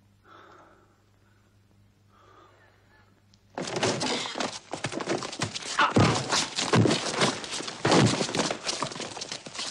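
Faint shuffling, then about three and a half seconds in a sudden loud crash opens a continuous din of smashing, breaking and heavy thuds, like a brawl wrecking a room.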